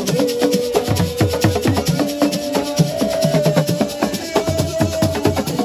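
Assiko music: fast drumming with shakers, over a held melody note that steps up in pitch a few times.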